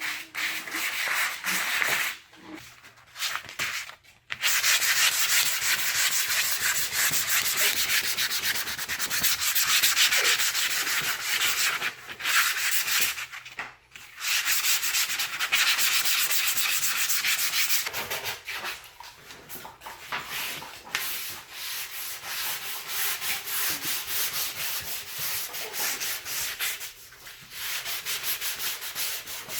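Wood being hand-sanded with sandpaper: quick back-and-forth rasping strokes, stopping briefly a few times.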